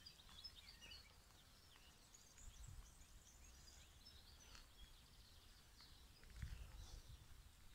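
Near silence with faint, scattered bird chirps, and two soft low rumbles, one near the middle and one near the end.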